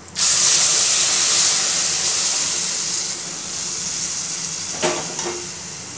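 Boiling water poured into a hot pan of roasted semolina (sooji) for upma, hissing loudly the instant it hits, the hiss slowly dying down as it soaks in. Two short knocks near the end.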